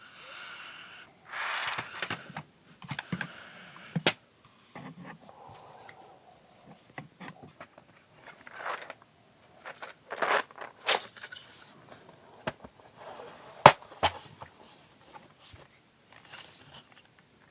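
Plastic PBT keycaps and their storage case being handled: scattered sharp clicks and taps, the loudest a little after the middle, with brief rustling and scraping sounds between them.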